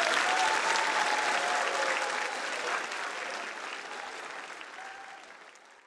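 Audience applauding, the clapping gradually fading away.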